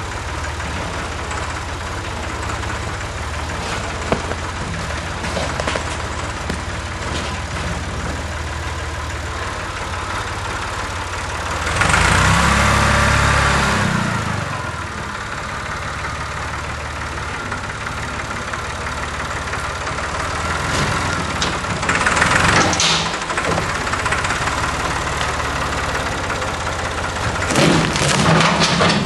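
Farm tractor engine running steadily, getting louder for a couple of seconds three times as it pulls on a chain to pull over a rotten tree.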